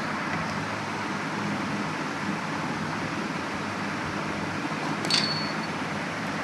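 Steady background hum, like a fan running, with a single sharp, slightly ringing click about five seconds in, as from small hardware being handled.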